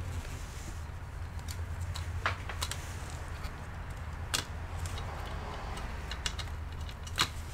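Scattered light clicks and taps from handling a laptop's motherboard and plastic chassis, the sharpest near the end, over a steady low hum.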